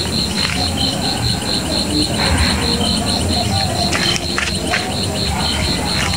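Crickets chirping in a steady pulsing trill, about five pulses a second, over a low rumble, with a few brief clicks about four seconds in.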